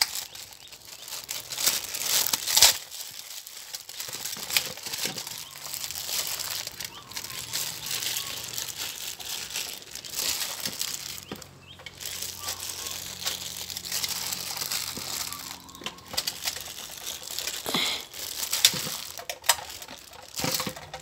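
Thin plastic bag crinkling on and off as a hand squeezes cooked rice out of it onto a plastic feeding tray for cats.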